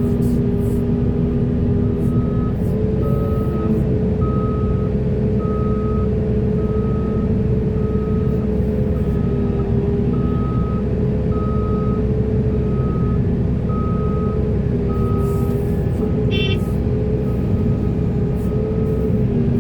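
Diesel engine of heavy earthmoving machinery running steadily. A reversing alarm beeps about once a second for some thirteen seconds, starting about two seconds in.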